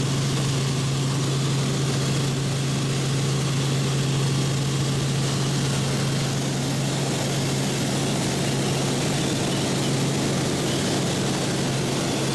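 Helicopter cabin noise in flight: the steady drone of the rotor and engine, with a strong low hum that holds unchanged throughout.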